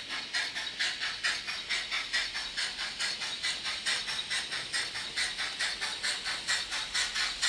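Steam locomotive chuffing: an even rhythm of sharp, hissing exhaust beats, several a second, with little bass.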